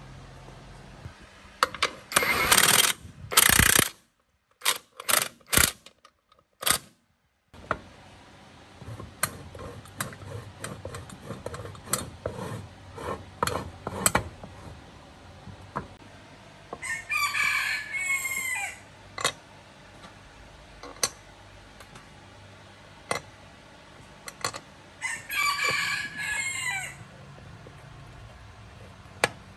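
A rooster crows twice, about halfway through and again near the end. Around it are short metallic clicks and knocks of cast metal saw-base parts and an aluminium plate being handled and screwed together, with a burst of louder clatter in the first few seconds.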